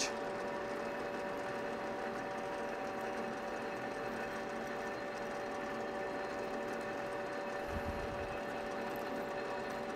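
South Bend metal lathe running with a steady mechanical hum and whine while a 5/16-inch twist drill, fed from the tailstock, bores into the spinning stock. A brief low bump comes about eight seconds in.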